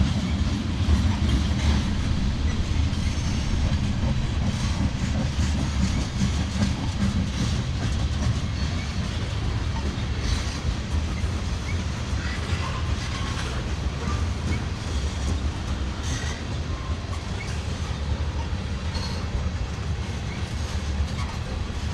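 Freight cars of a passing train rolling by: a steady low rumble of steel wheels on rail.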